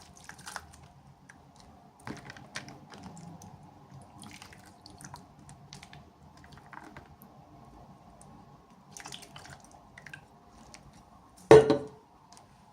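Hands unboxing miniature toys: scattered light clicks, taps and rustles of small plastic pieces and packaging, with one much louder short noise near the end.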